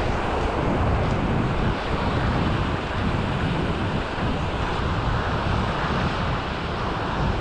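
Wind buffeting the microphone: a steady, heavy low rumble under an even hiss.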